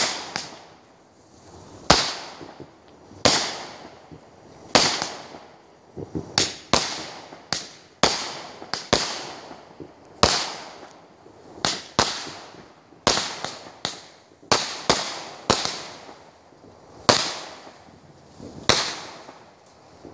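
Fireworks exploding in a long string of sharp bangs at uneven spacing, one or two a second, each fading out briefly after the crack.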